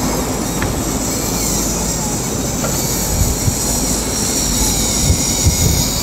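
Steady rush of wind and sea on a running sportfishing boat, with a low engine rumble and gusts thumping on the microphone from about halfway through.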